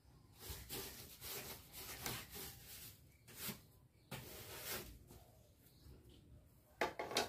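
Plastic broom bristles sweeping across the top of a power-amplifier road case, a run of quick scratchy strokes with the loudest two near the end.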